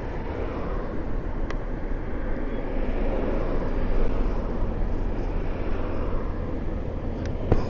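Wind rushing over the microphone with road and tyre noise from a Yume Predator electric scooter being ridden, steady and without any horn, with one sharp knock near the end.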